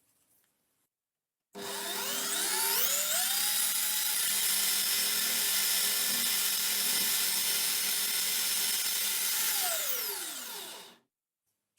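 An electric motor-driven tool starts up about a second and a half in, rising in pitch as it spins up. It runs steadily with a noisy whir, then winds down with a falling pitch and stops near the end.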